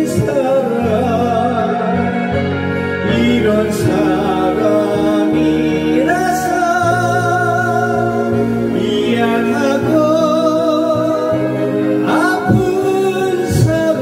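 A man singing a Korean trot ballad into a handheld microphone over a backing track, holding long notes with vibrato, with a new phrase about every three seconds.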